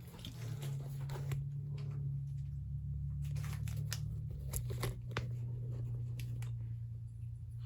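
Scattered light clicks and rustles of things being handled, over a steady low hum.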